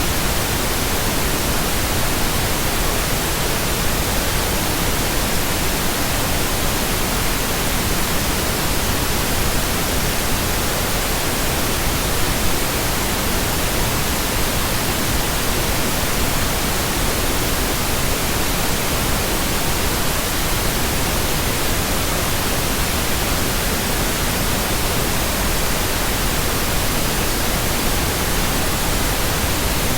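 Steady pink noise: an even hiss with no breaks or changes.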